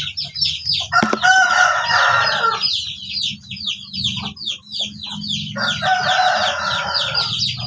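A rooster crows twice, each crow about a second and a half long, over the continuous rapid high peeping of many chicks.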